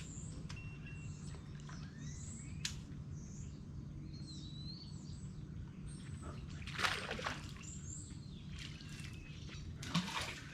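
Birds chirping over a steady low hum, with two short splash-like bursts of noise about seven and ten seconds in.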